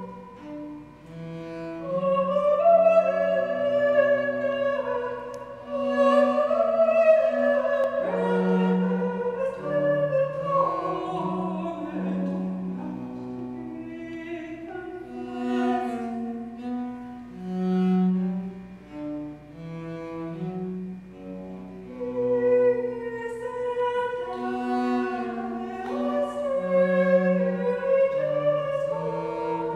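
Slow Baroque-style music: a cello bows a bass line in long held notes beneath a higher melody, also in long notes, with wavering vibrato.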